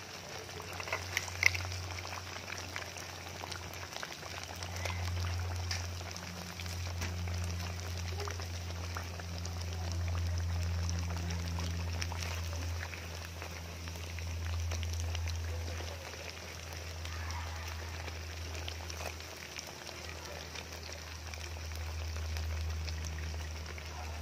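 Battered banana slices deep-frying in hot oil: a steady crackling sizzle of fine pops. A low hum runs underneath, swelling and fading, and a few sharp clicks come about a second in.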